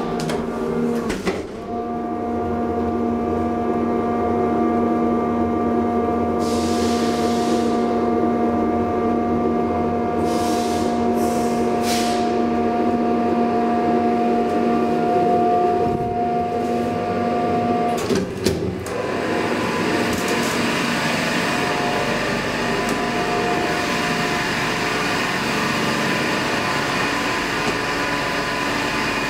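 1977 DEVE hydraulic elevator's pump unit. It starts with a click about a second in and runs with a steady hum for about sixteen seconds, then stops with a couple of clicks as the car arrives. A steady, even noise follows.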